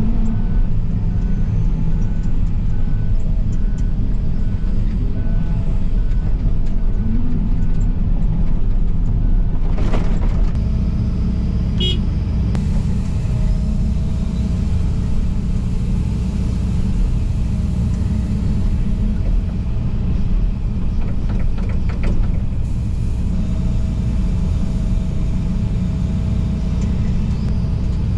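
A John Deere 245 excavator's diesel engine running steadily, heard inside the cab. For the first eight seconds or so a dump truck's reverse beeper sounds as a regular beep, about two a second; from about ten seconds in the engine runs under load as the hydraulics work the bucket.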